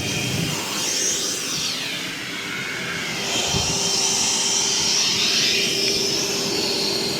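Kobalt 24V Max cordless vacuum running steadily, its motor whining with a steady hum underneath; the rushing airflow shifts as the nozzle moves and grows brighter about three seconds in.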